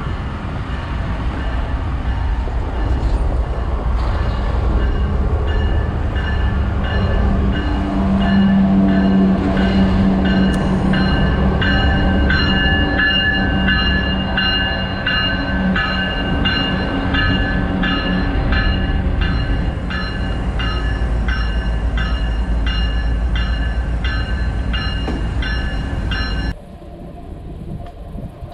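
Diesel locomotives of a freight train passing at close range, including a Kansas City Southern GE ES44AC: a steady low rumble of engines and wheels on rail, with a high ringing tone and regular clicks as the wheels cross rail joints. The sound cuts off abruptly near the end to something much quieter.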